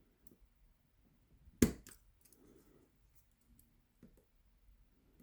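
Small metal tools clicking against the pins of an 8-pin tubular cam lock during picking: faint ticks, with one sharp click about one and a half seconds in and a lighter one right after.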